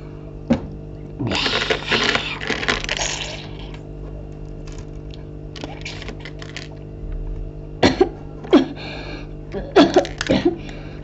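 Hard plastic clicks and clacks as Lego minifigures and bricks are picked up and set down on a Lego baseplate, with a noisy rustling stretch about a second in and a cluster of sharper clicks near the end, over a steady low hum.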